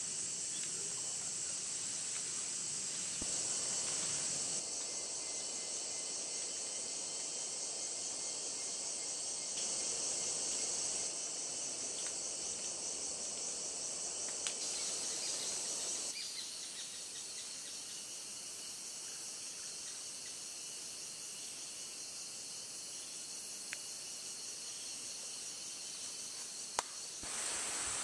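Steady high-pitched drone of a rainforest insect chorus. It steps up and down in level a few times, and there are a couple of faint clicks.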